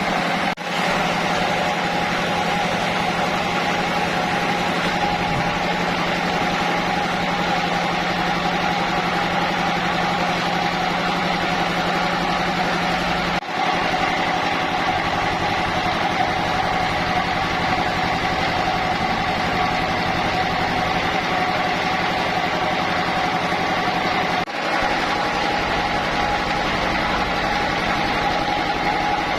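Sawmill machinery running steadily: a continuous engine drone with a steady high whine over it.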